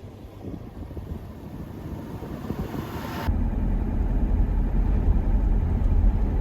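A Toyota Troopy four-wheel drive's engine and tyres rumbling as it drives, the loud low rumble cutting in abruptly about three seconds in. Before that, a softer rushing noise swells.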